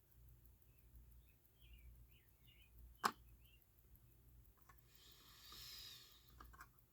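Near silence at a watchmaker's bench, broken by one sharp small click about three seconds in and a brief soft hiss near the end.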